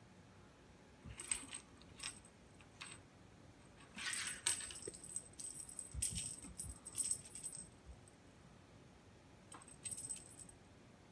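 Light metallic jingling in short, irregular bursts as a cat bats at and grabs a feather wand toy, with a few soft knocks on the wooden floor about six seconds in.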